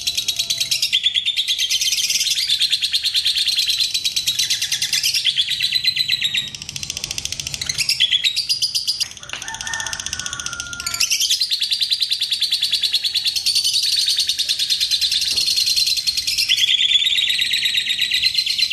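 Fischer's lovebird singing a long 'ngekek' chatter: fast, high, rattling trills of many notes a second, each run lasting several seconds, with a short break near the middle.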